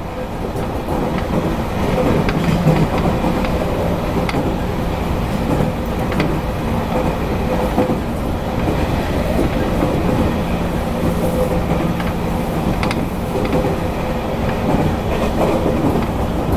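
Running sound heard inside the motor car of a JR Kyushu 813 series electric train at speed. A steady rumble of wheels on rail carries a constant hum, and a few sharp clicks come as the wheels pass rail joints.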